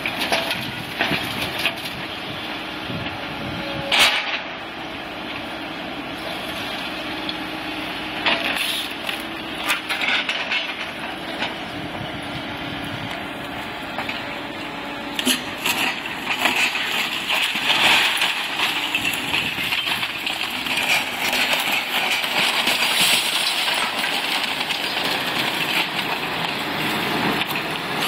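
Caterpillar excavator demolishing a brick building: its diesel engine runs steadily while wood, brick and debris crack and crash as the attachment tears into the structure. The crashing grows louder and denser a little past halfway.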